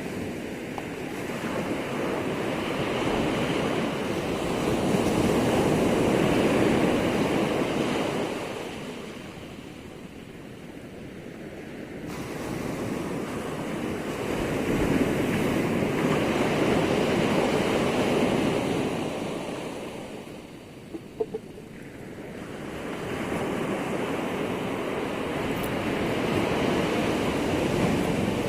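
Sea surf breaking and washing ashore at high tide, the rush of water swelling and easing about every ten seconds. Two brief clicks come about two-thirds of the way through.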